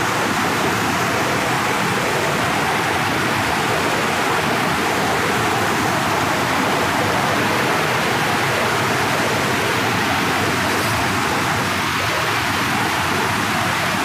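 Rushing water of a rocky forest stream and its falls: a loud, steady, even rush.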